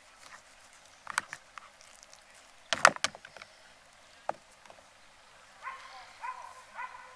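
A few sharp knocks and clicks, the loudest a cluster about three seconds in, as beers are handled. Near the end comes a faint pitched warbling sound.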